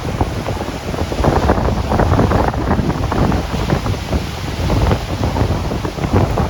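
Strong wind buffeting the microphone in gusts, over storm waves surging and breaking on a lakeshore.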